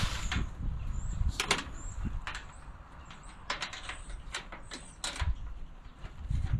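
Irregular knocks and clicks, about a dozen sharp ones scattered through, over a low rumble.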